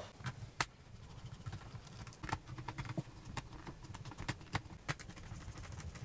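Light, irregular clicks and taps of hands and a small screwdriver handling a laptop's plastic bottom case.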